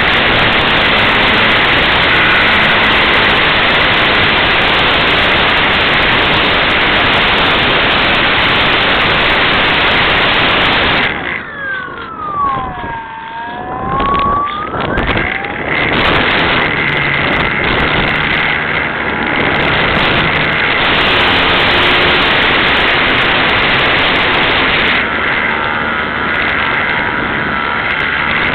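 Loud wind buffeting the microphone, with the whine of the Skyartec Cessna 182 model plane's electric motor beneath it. About halfway through, the wind noise drops out for a few seconds and the motor whine is heard falling in pitch, then rising again.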